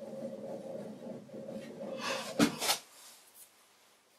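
Vintage Karger lathe running at about 600 rpm, a steady hum of motor and drive, while the tool takes a facing cut across the end of a metal workpiece. About two and a half seconds in come a couple of loud clunks and the running stops, as the lathe is shut off.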